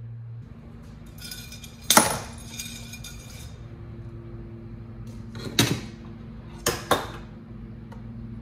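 Metal rod rammed down a rifle barrel to knock a stuck, expanded cartridge case out of the rust-pitted chamber: a sharp metallic clank with ringing about two seconds in, then a knock and a quick pair of knocks later on.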